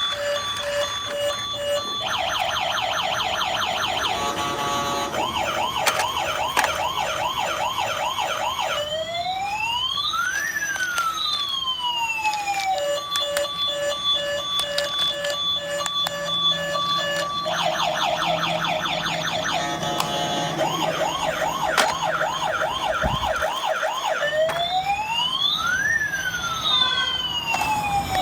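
Electronic toy siren cycling through its sound patterns: a pulsing beep, then fast warbling yelps, then slow rising and falling wails. The whole sequence plays twice.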